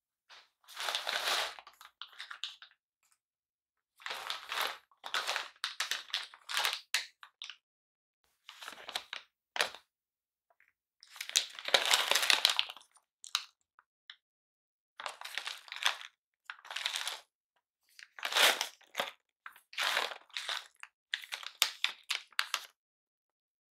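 A stand-up coffee bean pouch crinkling as it is handled and turned over in the hands, in short irregular bursts separated by brief pauses.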